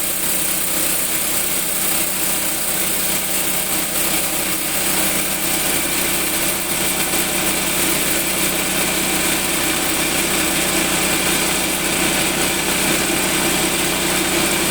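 Motor-driven sorting sieve machine running steadily: a constant hum under a broad, even mechanical noise.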